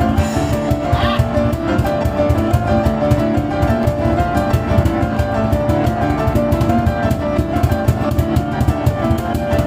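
Live piano and cajon music: an improvised piano passage of sustained chords and runs over fast, continuous cajon beats.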